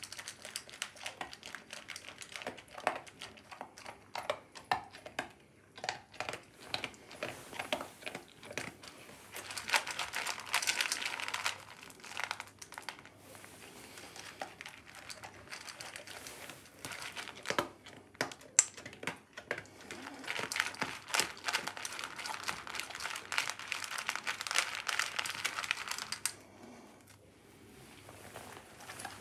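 A Doberman eating dry kibble from a stainless steel bowl: crunching, with the kibble clattering against the metal. The clatter comes in dense spells, two of them louder, with quieter gaps between.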